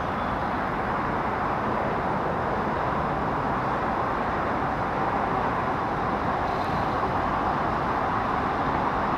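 Steady, even outdoor background roar with no distinct events.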